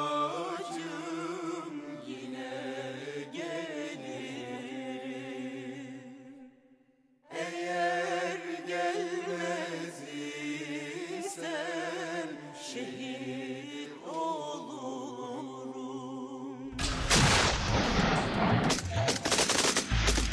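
Background music with a singing voice carrying a wavering melody, breaking off briefly about six and a half seconds in and then resuming. In the last few seconds it gives way to rapid machine-gun fire.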